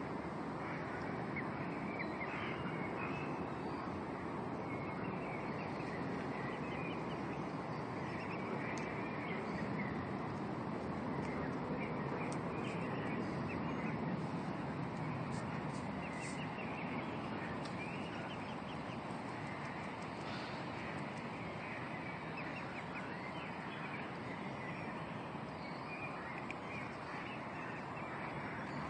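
Mute swan cygnets peeping in many short, high chirps over a steady background rumble.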